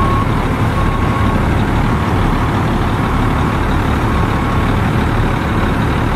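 The Cummins LTA 10-litre straight-six diesel of a 1995 International F2574 mixer truck running steadily, with its backup alarm beeping about once a second as the truck is in reverse; the beeps grow fainter in the second half.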